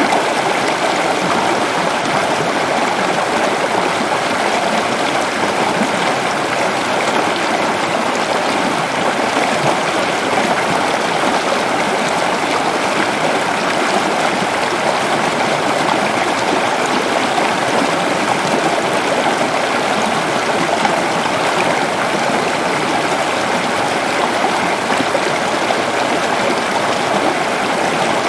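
Waterfall: a steady, unbroken rush of falling water, strongest in the middle range and even throughout.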